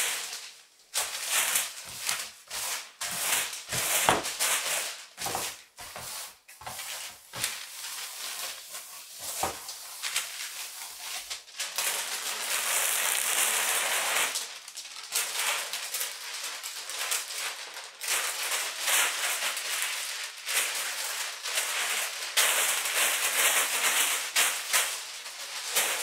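A large sheet of thin paper crinkling and rustling as it is pressed, rubbed and handled by hand over a painting. There are quick sharp crackles through the first ten seconds or so, then longer stretches of smooth rustling.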